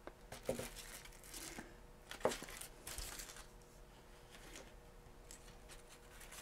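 Faint rustling and crinkling of plastic packaging, with a few light clicks, as small electronic kit parts are handled.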